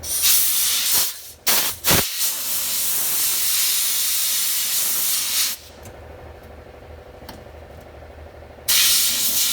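Compressed air hissing from an air tool in bursts that start and stop abruptly: a few short blasts, then a long one of about three seconds, and another near the end, over a steady low hum.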